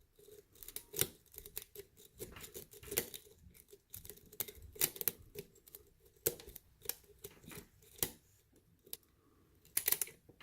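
Lock pick raking and picking the pins of a custom pin-tumbler lock under light tension: an irregular run of light metallic clicks and scrapes, thinning out about three-quarters of the way through before a quick cluster near the end.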